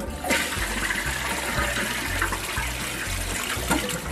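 A Briggs Vacuity 4400 vacuum-assisted toilet flushing: water rushes and swirls into the bowl, starting about a third of a second in. It is a weak flush without the sucking noise it used to make, a sign that the vacuum chamber isn't working, which the owner puts down to worn tank-to-bowl seals; it acts as if the toilet is plugged.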